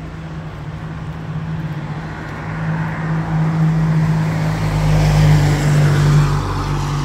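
Street traffic on wet pavement: a steady low engine hum with a vehicle's tyre hiss swelling and peaking about five to six seconds in.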